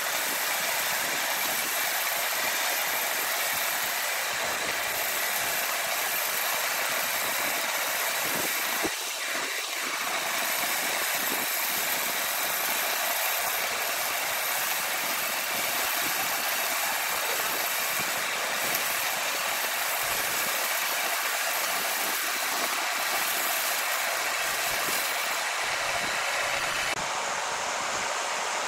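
Large horizontal band sawmill running, its blade sawing lengthwise through a huge log: a steady, loud machine noise with a constant high whine, dipping briefly about nine seconds in.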